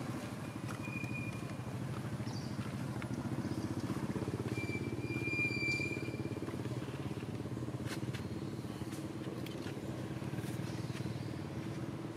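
Motorcycle engine idling steadily, with a fast, even putter. Two short high chirps cut in, about a second in and again about five seconds in.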